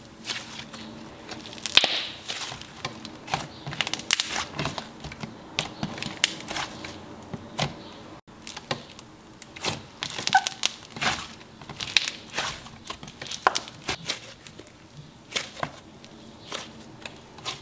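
Cucumber melon sorbet slime being stretched and squished by hand, giving off irregular crackling clicks several times a second.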